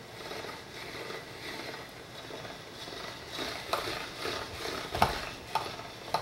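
Hand-cranked pasta machine turning, its rollers pressing a sheet of fresh pasta dough thinner. A steady noisy run of the crank and rollers, with a series of sharp clicks and knocks in the second half, the loudest about five seconds in.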